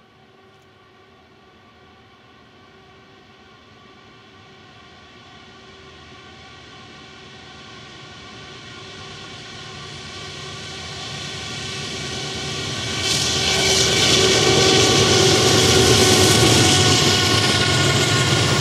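Diesel locomotives approaching, the engine tones growing steadily louder. About 13 seconds in the sound jumps sharply in loudness as the locomotives come close and pass.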